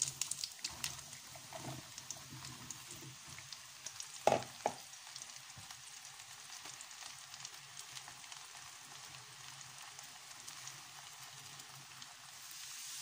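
Sliced button mushrooms tipped into hot melted butter in a frying pan, sizzling with a steady crackling hiss. There are two sharp knocks about four seconds in.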